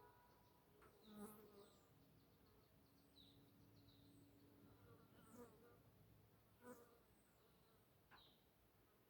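Near silence: a faint low hum for a few seconds in the middle, with a few faint high chirps and soft clicks.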